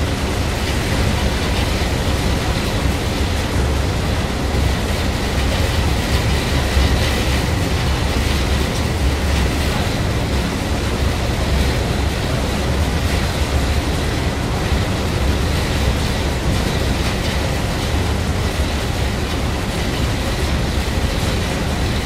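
Steady low rumble with a constant rushing noise over it, the drone of a boat under way, with no sudden claps or bangs.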